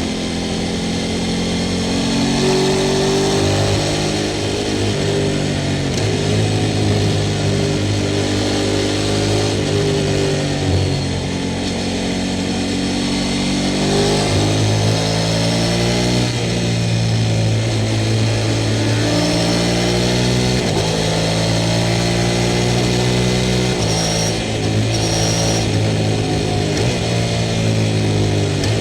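Sport motorcycle engine under way, revving up and down through the gears: the pitch climbs repeatedly and drops abruptly at each shift or throttle closing.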